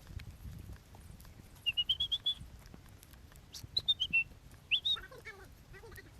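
A bird singing: a run of short clear high notes that steps slightly upward, then a falling run and a quick rising phrase, followed by lower warbling notes. Low rustling in the first second.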